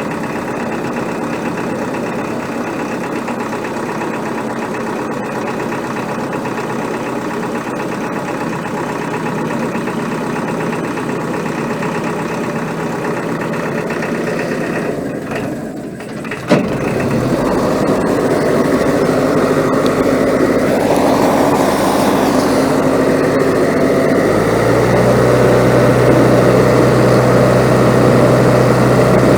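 Engine of an old work barge running steadily. About halfway through the sound breaks off with a click and comes back as a louder engine note, which grows stronger and steadier near the end.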